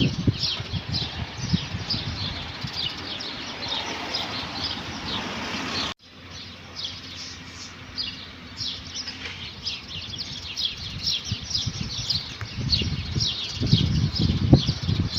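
A chorus of many small birds chirping: rapid, short, high chirps sliding downward, several a second. Low rumbling noise comes near the start and again toward the end. The sound breaks off abruptly about six seconds in and then resumes.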